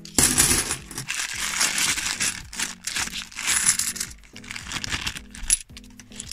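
Clear plastic bag of bimetallic £2 coins crinkling and rustling in the hands as the coins are worked out of it, the coins clinking against each other. The rustling is dense for about the first four seconds, then comes in shorter bursts.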